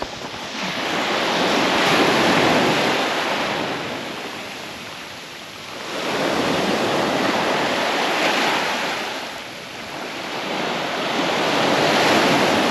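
Small waves breaking and washing up a sand-and-shingle beach: three surges of surf noise, each building and fading over a few seconds.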